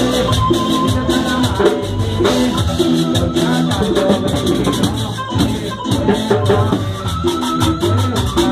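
Loud Latin dance music from a live band, with a steady beat of rattling shaker percussion over drums, bass and keyboard.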